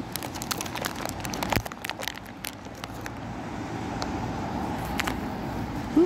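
Road traffic running steadily in the background, growing louder in the second half, with a string of sharp clicks and crackles in the first couple of seconds.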